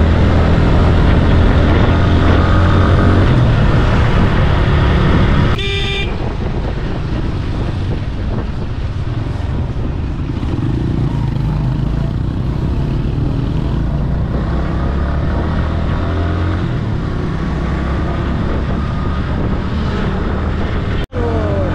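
Motorcycle engine running under way on a highway, with wind and road noise on the rider's camera and surrounding traffic. A vehicle horn toots briefly about five seconds in, and the sound drops out for an instant near the end.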